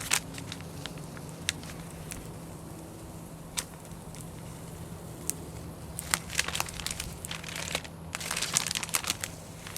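Pre-mask transfer tape crinkling and crackling as it is peeled off a vinyl window decal: scattered sharp crackles, growing into a dense run of crackling near the end.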